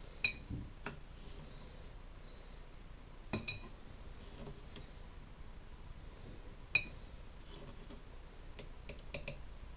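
Light clinks of glassware, each a sharp tap with a short bright ring. A few single clinks come seconds apart, then a quick run of several near the end.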